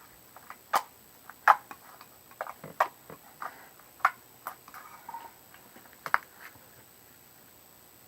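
Homemade slime being squeezed and handled, giving irregular small clicks and pops, about a dozen that stop after six or seven seconds.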